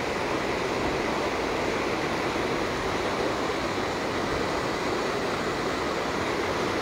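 Steady rush of fast-flowing floodwater pouring across a flooded field.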